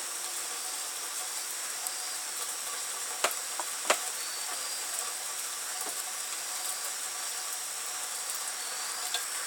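Steady hiss of night rain with a constant high insect drone over it. Two sharp ticks come about three seconds in, half a second apart, and a fainter one near the end.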